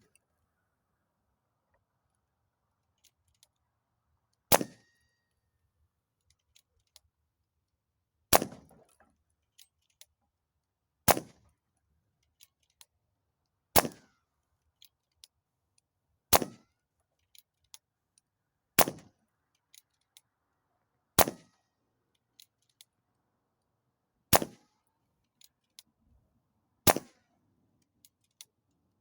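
Nine shots from an AEA Challenger Pro .25 calibre PCP air rifle firing H&N slugs, spaced about every two and a half to three seconds, each a sharp crack with a short ringing tail. Faint small clicks fall between the shots.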